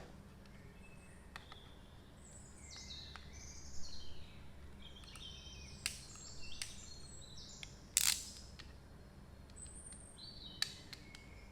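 Small birds chirping and tweeting in quick repeated calls, with a few sharp clicks, the loudest about eight seconds in, over a faint steady low hum.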